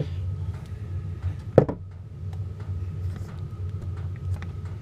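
Wooden bottom bars being pushed into a beehive frame, a tight fit: small clicks of wood on wood and one sharp knock about one and a half seconds in. A steady low hum runs underneath.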